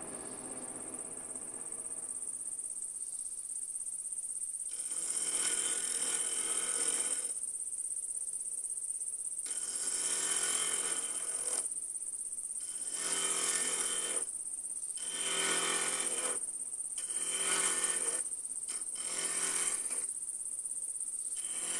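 Wood lathe running with a steady high whine while a carbide turning tool cuts the spinning Bois d'Arc duck call barrel in about six scraping passes of one to two seconds each, reducing its diameter.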